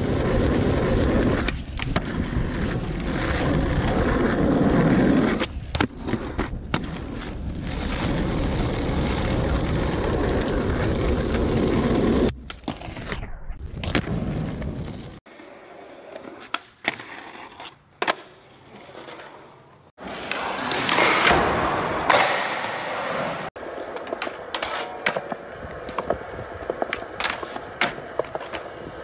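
Skateboard wheels rolling over concrete, with sharp clacks and knocks of the board popping and landing. The sound changes abruptly several times, from long loud rolling to quieter stretches with scattered clacks.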